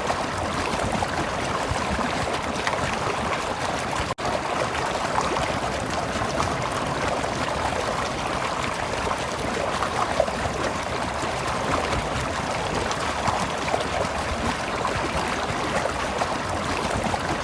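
Stream of water flowing and babbling steadily, with a split-second break in the sound about four seconds in.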